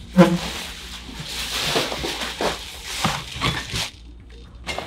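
A person's short, sharp yelp just after the start, followed by a few seconds of breathy, uneven non-speech vocal sounds.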